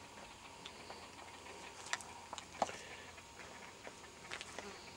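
Faint, irregular light ticks and crackles of footsteps on dry grass, leaves and twigs as someone walks along the bank.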